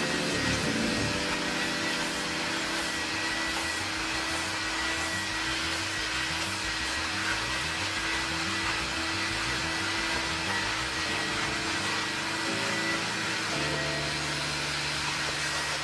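A steady whirring motor with rushing air, like a vacuum or blower used in car detailing, running under background music with a stepping bass line.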